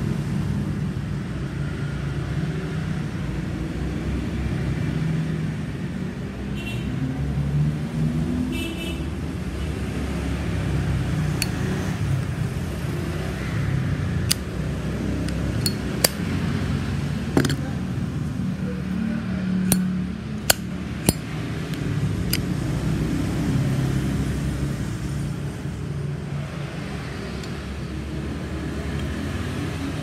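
A Zippo lighter's metal case being handled and turned in the hand, giving about eight sharp, separate clicks and taps in the middle stretch, over a steady low background rumble.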